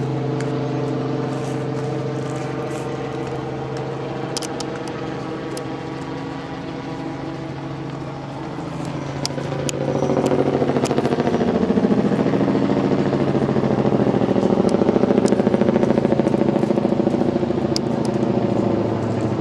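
Motor vehicle engine running steadily, then growing louder and rougher about halfway through as a vehicle accelerates or passes close by, with a few small clicks.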